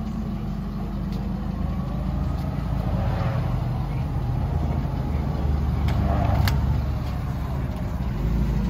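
Forklift engine idling steadily, with a couple of sharp metallic clinks about six seconds in.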